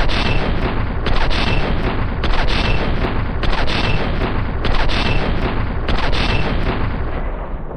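Sound effect of an M2 Browning .50-calibre heavy machine gun in sustained automatic fire. It is loud and continuous, with a pattern that repeats about once a second.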